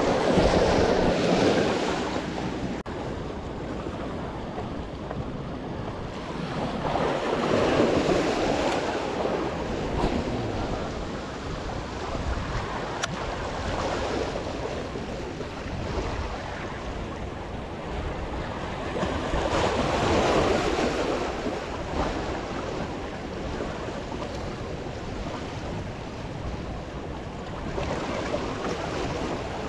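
Small sea waves washing in among the boulders of a rock jetty, a steady wash that surges louder a few times as bigger waves break against the rocks.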